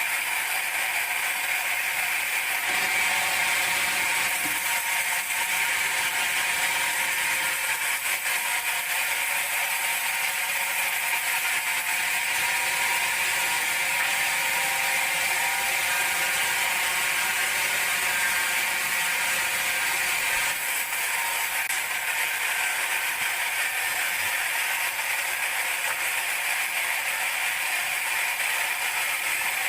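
Band sawmill running steadily while sawing teak, a continuous mechanical whine with several held tones over a rushing noise.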